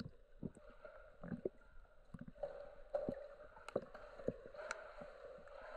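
Faint gurgling and sloshing of pool water around a capsized kayak, heard through a half-submerged camera, with scattered faint clicks and knocks at irregular intervals.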